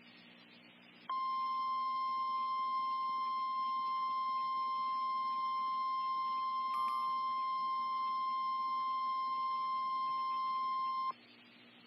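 NOAA Weather Radio warning alarm tone, the single steady high tone that opens a weather warning broadcast, sounding for about ten seconds. It starts abruptly about a second in and cuts off sharply near the end, over faint hiss.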